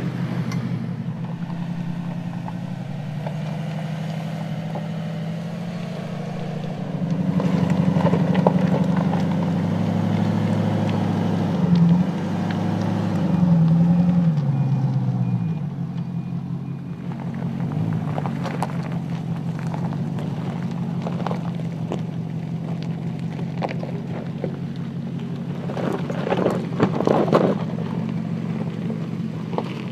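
Porsche Cayenne S's 3.6-litre twin-turbo V6 running at low revs while crawling off-road, swelling as the throttle opens and the pitch rises and falls a few times in the middle. Crunching and knocking of loose stones under the tyres, the loudest burst near the end.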